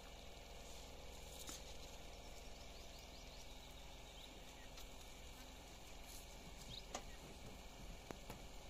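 Faint outdoor ambience: a steady quiet hiss with a few faint high chirps partway through and a few soft clicks near the end.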